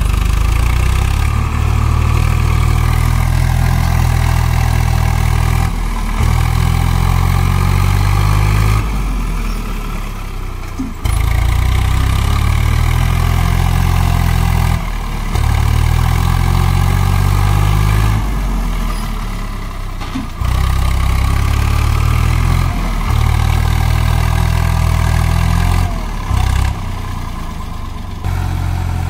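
Tractor diesel engine running with a steady low hum, its note changing abruptly every few seconds as the sound cuts from one stretch to the next.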